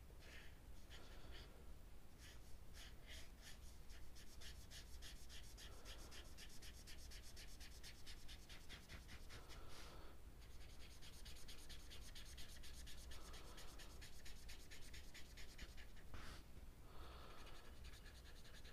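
Faint scratching of a felt-tip marker on paper in quick, repeated back-and-forth strokes as a shape is coloured in, with a couple of short pauses.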